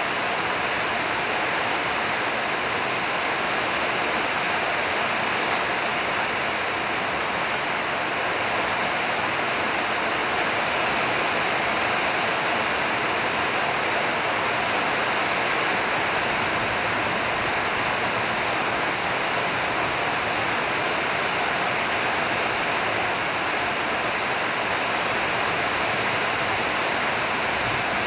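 A steady, even rushing noise that holds level throughout.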